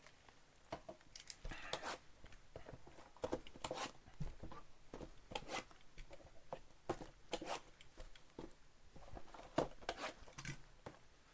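Trading-card packaging being torn open and handled: a run of short, irregular crinkling and tearing sounds from plastic pack wrappers and cardboard.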